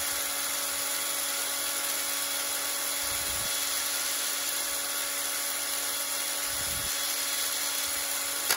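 Cordless drill with a twist bit in the chuck, running free at a steady speed: an even motor and gearbox whine that holds without change, then cuts off abruptly at the end.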